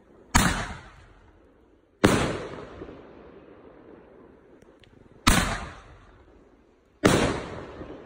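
A 30 mm crash-ball mortar firework cake firing: four loud, sharp bangs in two pairs, each dying away over about a second, as the shells launch and burst.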